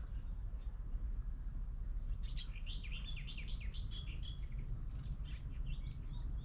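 A songbird singing a fast twittering run of high chirps that starts about two seconds in, with a shorter run of chirps near the end, over a steady low rumble.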